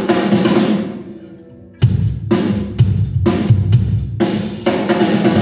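Drum kit played: a cymbal crash rings away, then about two seconds in a short beat on kick drum and snare starts, with crash cymbals struck about once a second and left ringing at the end.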